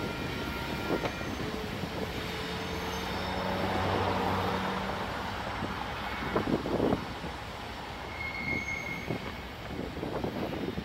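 Kansas City Southern diesel locomotive hauling a loaded grain train as it pulls away on a curve, its engine a steady low hum. A brief faint squeal from the wheels comes a few seconds in, and a few sharp knocks from the wheels on the rails come past the middle.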